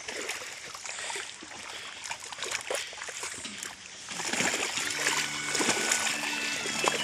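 Shallow stream running down a trail, with water splashing and sloshing underfoot. About two-thirds of the way through, music with held notes comes in and is louder than the water.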